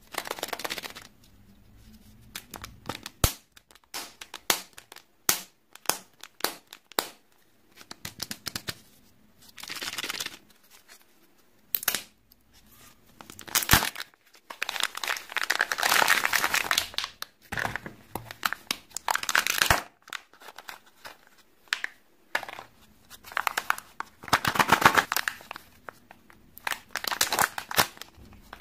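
Kinder Joy plastic egg being opened by hand: bursts of crinkling and tearing as the foil seal and plastic wrapping are pulled away, with several sharp plastic clicks and snaps as the shell halves and toy capsule are pried apart.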